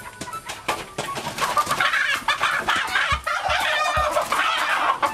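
A rooster squawking and clucking in alarm as it is caught by hand, loud calls starting about a second and a half in, with a few thumps of the scuffle.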